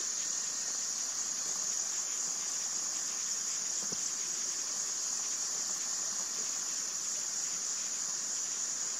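Steady high-pitched chorus of insects, a continuous unbroken buzzing trill.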